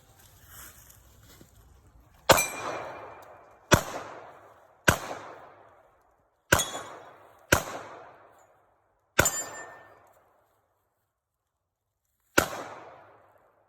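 Seven gunshots at uneven intervals, each a sharp crack followed by an echo that fades over about a second, with a longer pause before the last shot.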